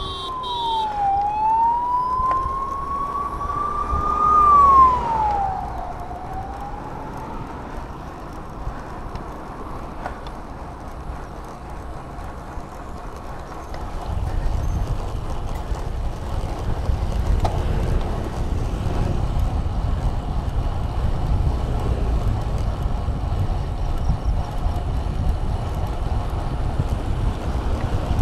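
A siren wails for the first several seconds, its pitch falling, rising and falling again. Then come the wind rushing over the microphone and the tyre noise of a road bike riding on a paved road, which get louder about halfway through.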